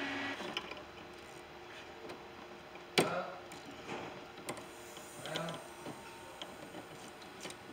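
Sparse sharp clicks and light knocks of hand tools being handled on metal, the loudest about three seconds in. A steady hum cuts off just after the start.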